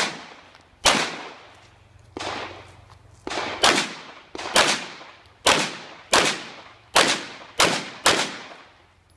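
Pistol shots fired one at a time, about ten at uneven gaps of roughly half a second to a second, each a sharp crack with a short echo dying away behind it; a couple of the shots are quieter than the rest.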